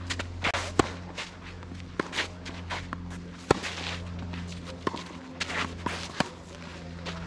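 Tennis rally: racket strings striking the ball back and forth about every second and a half, the sharpest hits just under a second and about three and a half seconds in. Players' footsteps and shoes scuffing on the court are heard between the shots.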